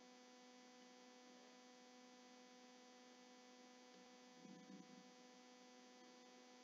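Near silence with a faint steady electrical hum, like mains hum on the recording.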